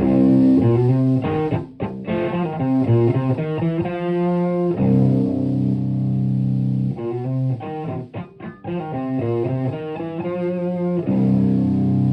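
Electric guitar, a Stratocaster played through a TS-808 Tube Screamer overdrive pedal into a Marshall Plexi amp, with a mildly overdriven tone. It plays a riff of quick picked single notes between held chords at the start and end, with a short break about two-thirds of the way through.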